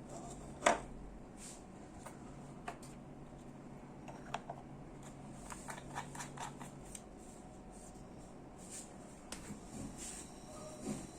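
Small objects handled on a tabletop: scattered light clicks and taps, with a sharper knock about a second in and a cluster of quick taps around six seconds.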